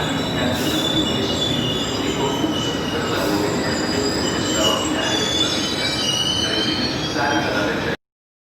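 Train moving through a station, its steel wheels squealing on the rails in several high shifting tones over a steady rumble. The sound stops abruptly near the end.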